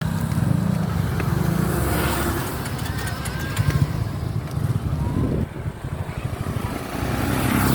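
A vehicle engine running steadily on the move, with wind and road rush.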